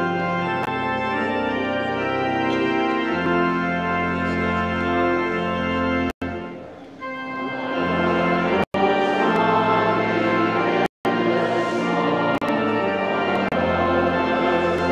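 Organ music playing slow, held chords. It fades briefly about six seconds in, then comes back fuller. The sound cuts out for an instant three times.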